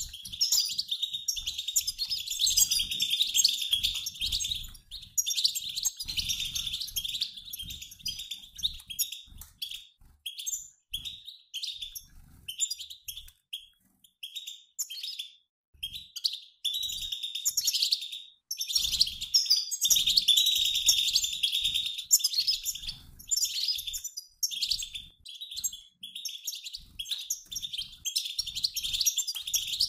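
A mixed flock of male and female European goldfinches giving a dense, rapid twitter of chirps. The twitter thins into sparser, shorter chirps in the middle, then turns dense again. This flock 'batbata' chatter is the kind used to stir caged male goldfinches into song.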